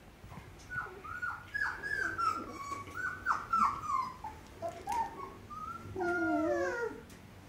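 Australian Shepherd puppy whining: a string of short high whines, each dropping in pitch, then one longer falling yowl near the end.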